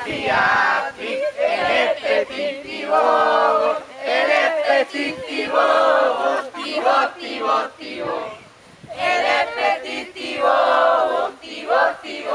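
A mixed group of young men and women chanting a playful game song together in unison, loud and shouted, in bursts of about a second with short breaks between phrases.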